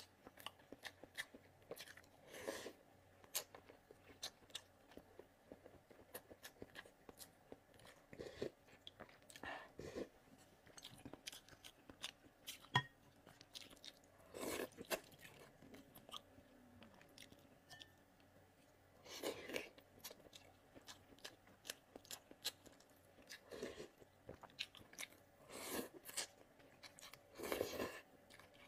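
Close-miked eating of hot and sour glass noodles with boiled eggs: steady chewing with many small mouth clicks, broken by several short slurps of noodles, the last near the end.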